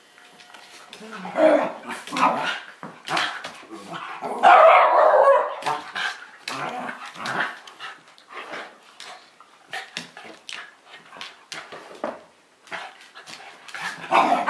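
Two Shiba Inus play-fighting, barking and yipping in short, irregular bursts, loudest about four to five seconds in.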